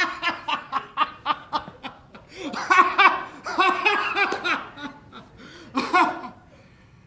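A man laughing aloud in runs of rhythmic 'ha-ha' pulses: one run, a second longer one about two and a half seconds in, and a short last burst about six seconds in.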